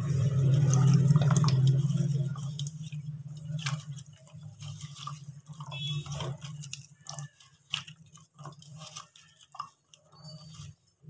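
Cut potato sticks being swished and rubbed by hand in a bowl of water: irregular small splashes, drips and light clicks as the wet sticks knock together. A low steady hum runs underneath and is loudest in the first two seconds.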